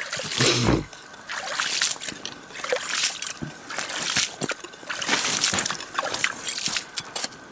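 Plastic ice skimmer scooping slush and water out of an ice-fishing hole: repeated sloshing and trickling as the scoop is dipped in and lifted out.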